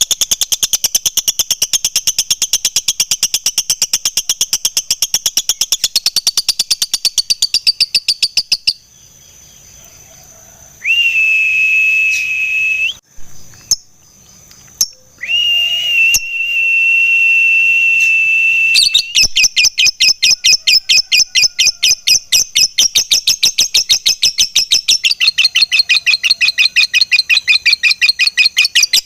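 Fighter lovebird's long 'ngekek' chatter: a very fast, unbroken run of shrill repeated notes. About nine seconds in it breaks off for two steady high whistle tones lasting roughly two and four seconds, and then the rapid chatter starts again.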